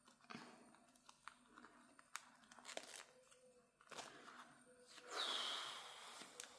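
Small clicks and soft crinkling of a vinyl zip pouch being fiddled with by hand, its zip slider being worked on a zip that has come apart. About five seconds in there is a louder rasping rustle lasting a second or so.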